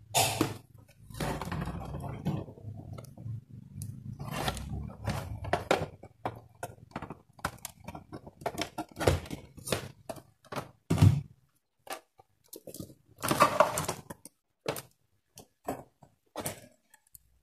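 Handling noise of a computer monitor and its cables on a workbench: an irregular run of clicks, knocks and rustles as the monitor is shifted and a video-cable plug is handled, with a louder thud about two-thirds of the way through.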